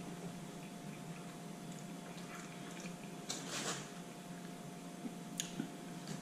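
Faint wet chewing and mouth sounds of a person eating, with a few smacks about three and a half seconds in and again about five and a half seconds in, over a steady low hum.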